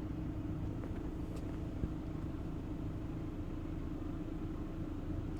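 Steady low background rumble with a faint constant hum, and a single faint click a little under two seconds in.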